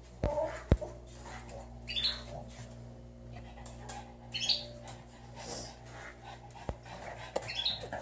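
Pet canaries giving three short high chirps a couple of seconds apart, with a few sharp clicks in between, over a steady low hum.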